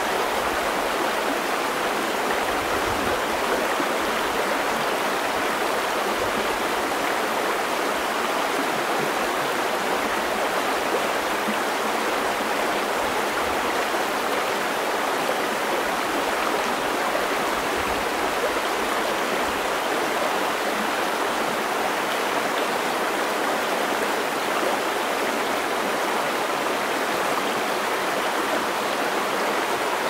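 Shallow rocky creek rushing and babbling steadily over stones and riffles, heard close to the water surface.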